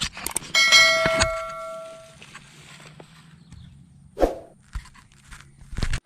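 A single loud metallic ding about half a second in, ringing with many overtones and fading over about a second and a half, among scattered sharp clicks.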